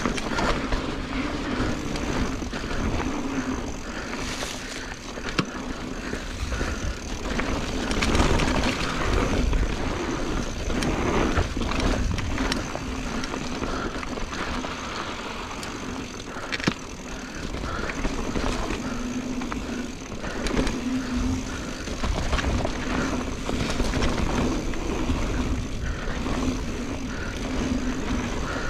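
Mountain bike riding a dirt trail: wind rumbling on the microphone, tyres on dirt, and frequent rattles and knocks from the bike over bumps.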